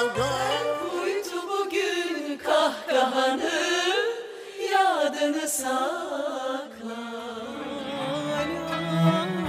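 Live Turkish classical music: an ensemble of violins and hand drums plays a winding, ornamented melody, with a woman singing.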